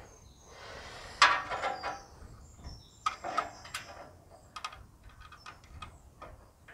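Scattered metallic clicks and short scrapes of a spanner tightening a self-locking nut and washer onto a bolt through the wooden frame, with a rustle of handling about a second in.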